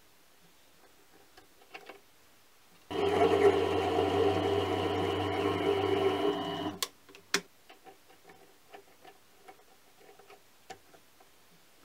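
Mini lathe running for about four seconds, from about three seconds in, while a threading insert takes a pass on a steel thread; the machine sound is steady and cuts off, followed by two sharp clicks. Before and after it, faint small clicks as a steel nut is tried on the thread by hand.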